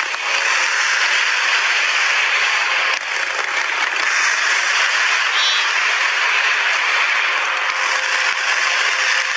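Aerial fireworks crackling in a dense, continuous wash of sound, loud and steady without single distinct bangs.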